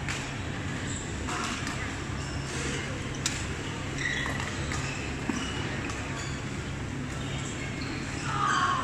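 Badminton play in a busy sports hall: sharp racket hits on the shuttlecock and short squeaks of court shoes, the sharpest crack about three seconds in, over a murmur of many voices and a steady hum.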